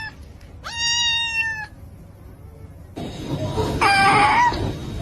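Domestic cat meowing twice: one long, even-pitched meow about half a second in, then a rougher, wavering call near the end. The cat is displeased.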